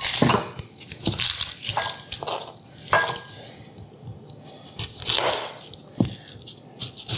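Chef's knife cutting through a whole onion on a plastic cutting board: a handful of separate crunching cuts and taps of the blade on the board, at uneven intervals.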